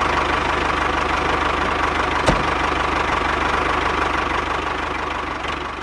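Small engine running steadily with a fast, even pulse, with one short knock about two seconds in.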